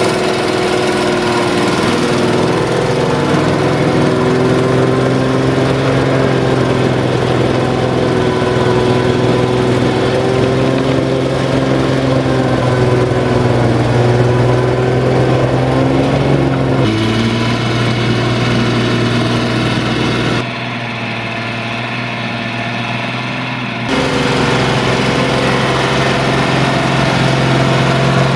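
Tractor diesel engine running steadily under heavy load while ploughing wet, muddy ground. The tone changes abruptly twice and is quieter for a few seconds about two-thirds of the way through.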